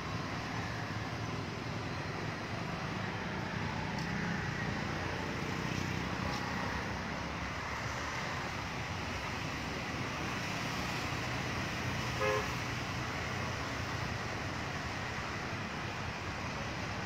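Steady hum of road traffic, with one short horn toot about twelve seconds in.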